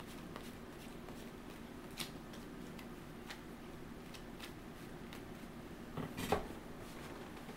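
Trading cards being handled and laid down on a table: a few light clicks and taps, with the loudest cluster of taps near the end, over a steady low hum.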